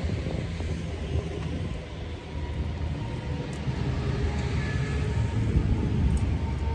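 Wind rumbling steadily on the microphone, the loudest sound. Under it, the hand post-hole auger scrapes and grinds as it is twisted down into the soil.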